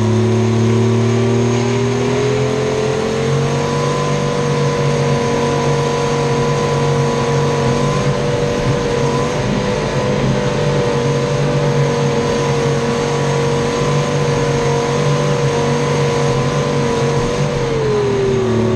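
Clark 664B skidder's Detroit Diesel 3-53, a three-cylinder two-stroke diesel, running loud and hard, heard from right beside its exhaust stack and muffler. The revs climb over the first few seconds, hold high and steady, then drop near the end.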